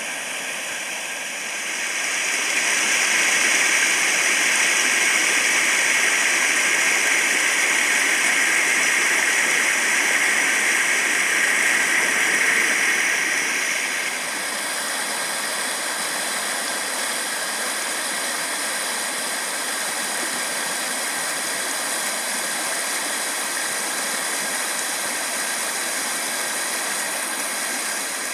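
Flood-swollen creek rushing over rapids after heavy rain: a steady, loud wash of white water that grows louder about two seconds in and drops back a little about halfway through.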